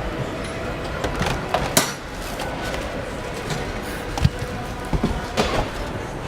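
Car assembly-line factory noise: a steady machinery hum with scattered sharp clicks and metallic knocks, the loudest about two seconds in and again between four and five and a half seconds.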